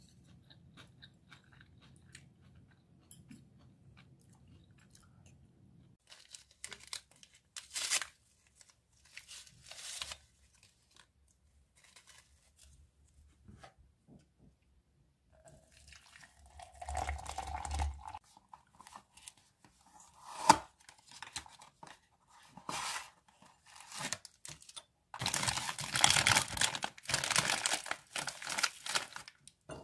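Plastic snack packaging being handled: a dense crinkling and rustling, loudest near the end. Before that, faint utensil and eating sounds, scattered rustles, and one sharp tap about two-thirds of the way through.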